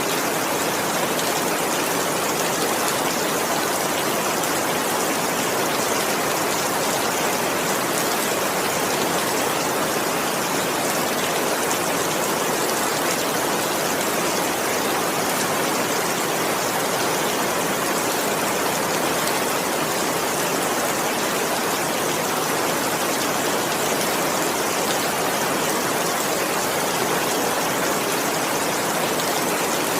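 Steady heavy rain, an even hiss with faint scattered drop ticks and no thunder.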